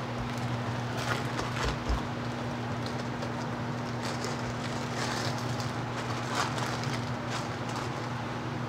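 Steady hum of an electric blower fan, with a few light clicks and rustles of small tools and a petri dish being handled.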